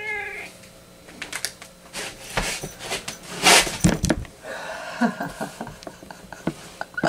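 Irregular light knocks, taps and clicks, with a short burst of hiss about three and a half seconds in.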